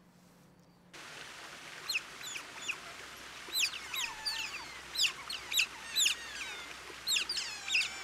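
A chorus of high-pitched animal chirps: quick, steeply falling whistles, several a second, beginning about a second in over a steady hiss.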